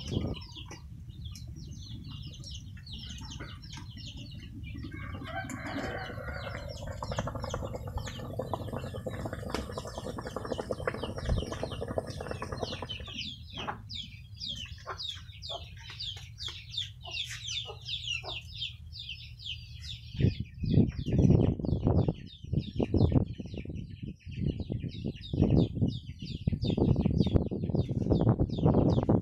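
Chickens clucking, with many short, high, falling chirps from about halfway through. Loud irregular bumps near the end.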